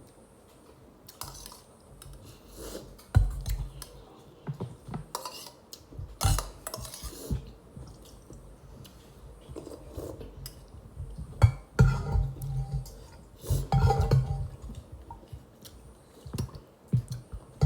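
Eating at a plate: irregular clinks and knocks of cutlery and dishes as food is picked up and moved, with chewing between them.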